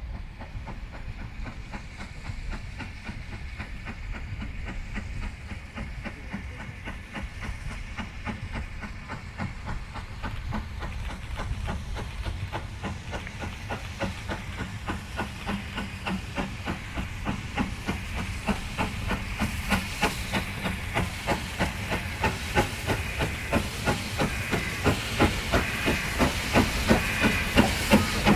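Steam locomotive working a train, its exhaust beats coming in a steady rhythm over a hiss of steam and growing steadily louder as it approaches.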